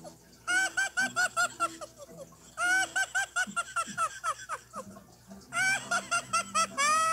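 Playskool Friends Tickle Me Elmo plush toy laughing through its small speaker: three bursts of rapid, high-pitched electronic giggling, about eight 'ha's a second, with short pauses between them.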